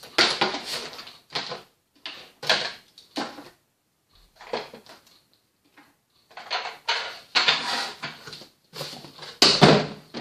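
Plastic toy playset pieces and packaging being handled: irregular rustles, taps and clatters, with the loudest knock near the end.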